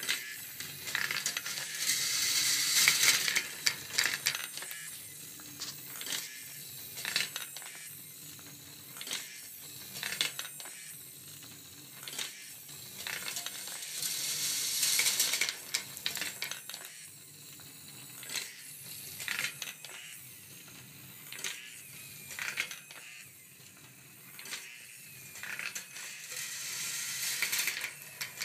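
Marble run machine running: steel balls clicking about once a second as the motor-driven wooden lifting stairs step them upward, and three times a longer rattling run as balls roll down the brass wire tracks.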